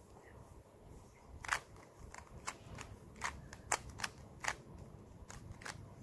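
A 2x2 puzzle cube's plastic layers clicking as they are turned by hand: about ten sharp, irregular clicks, starting about a second and a half in.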